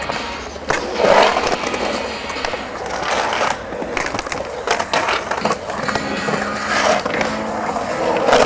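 Skateboard wheels rolling on the concrete walls of a pool-style bowl, the rolling noise swelling and fading with each carve, with a few sharp knocks from the board.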